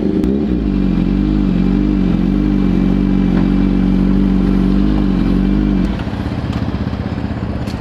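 Yamaha R1's inline-four engine running at steady low revs, then dropping to a lower, pulsing idle about six seconds in.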